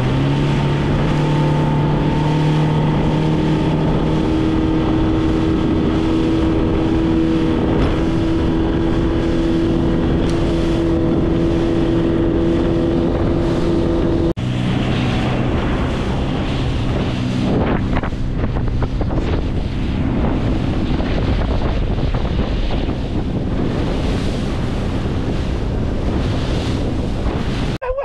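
Outboard motor of a Zodiac inflatable boat running steadily under way, with wind on the microphone. The sound cuts off abruptly about halfway through and picks up again at a slightly different pitch.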